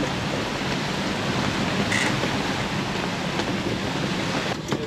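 Steady rush of wind and sea around a sailing yacht under way in about 20 knots of wind, with a few sharp clicks near the end.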